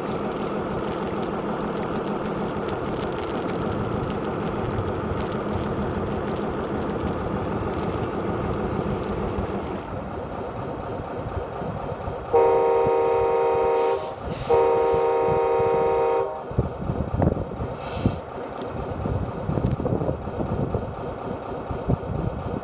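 A steady mechanical running noise with a fluttering hum, which stops about ten seconds in. Then two long, steady horn blasts of about a second and a half each, half a second apart, followed by light clatter.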